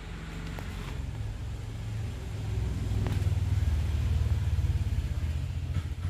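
A low, fluttering rumble that swells to its loudest in the middle and eases off near the end.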